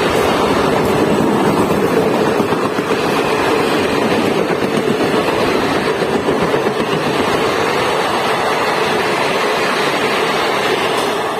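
Passenger train passing at speed: a steady, loud rush of wheels on rail and rushing air, with no horn.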